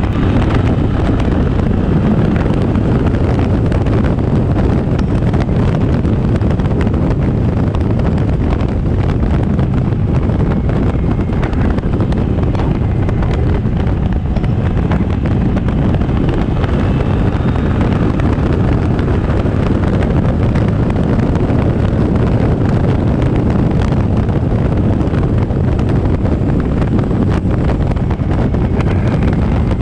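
Wind rushing steadily over the microphone of a camera on a moving Kymco AK550 scooter, with engine and road noise underneath.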